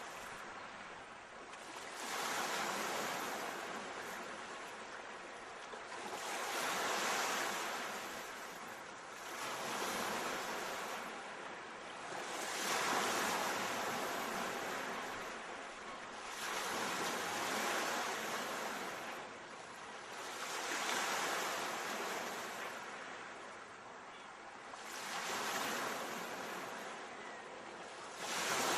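Sea waves breaking and washing up on a shore, a new surge swelling and falling back every three to five seconds.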